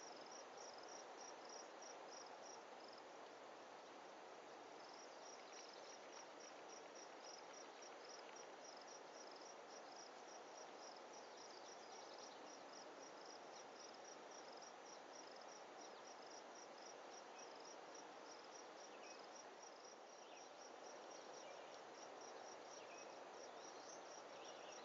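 Faint insect chirping: a steady run of short, evenly spaced high chirps that breaks off about three seconds in and resumes about two seconds later, over a low even hiss.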